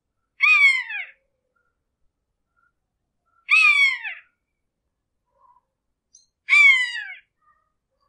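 Hawk screeching three times, about three seconds apart, each a short, clear scream that slurs down in pitch.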